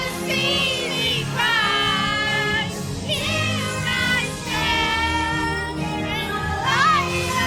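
Music: a song with sung vocals, long held notes that glide in pitch, over a steady accompaniment.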